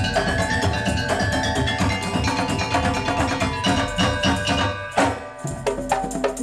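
Percussion ensemble playing keyed mallet instruments in a fast, dense rhythm of pitched struck notes. About five seconds in, a sharp, loud stroke is followed by sparser, separated strokes.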